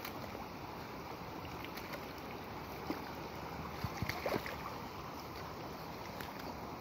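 Muddy floodwater rushing steadily across a flooded paddy field. A few brief knocks come a little past the middle.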